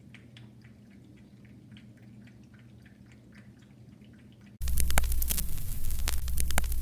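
Faint scattered clicks over a low hum, then about four and a half seconds in a loud low electrical hum with crackling static cuts in abruptly.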